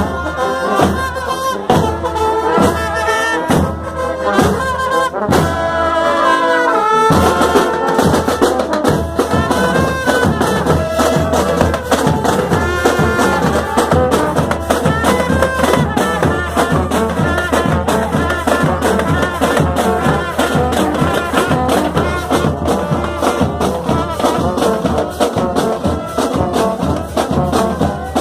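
Marching band (banda marcial) playing: trumpets and trombones over a drum line. About seven seconds in, the brass falls in a downward run and the drumming turns much faster and denser.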